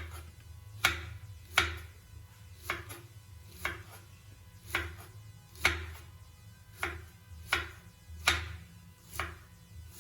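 Kitchen knife slicing an onion lengthwise on a chopping board: sharp cuts striking the board roughly once a second, about eleven in all.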